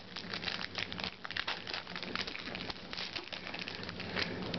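Trading cards being handled and flipped through by hand: a run of small crackling clicks and rustles of card stock and packaging.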